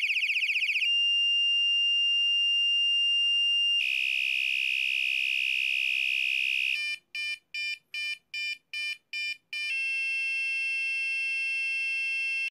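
Electronic horn of a cheap bike front light, its trigger held down so that it steps through its tones: a fast warble, then a steady high beep, a harsh buzz about four seconds in, a run of short beeps about two a second, and a steady tone near the end.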